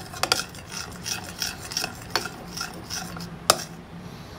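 Metal spoon stirring a thick glucose-syrup and gelatin mixture in a ceramic bowl, scraping the bowl about two or three times a second. There are occasional sharp clinks of the spoon on the bowl, the loudest about three and a half seconds in.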